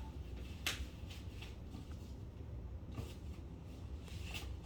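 Quiet room tone with a steady low hum and a few faint clicks or rustles, about three in all.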